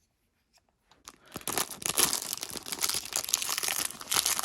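Crinkly plastic packaging of a miniature toy capsule being handled and torn open, a dense crackling that starts about a second in.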